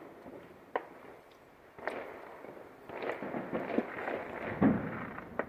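Fireworks display going off in the distance: single sharp bangs about a second and two seconds in, then a run of crackling pops and bangs through the second half.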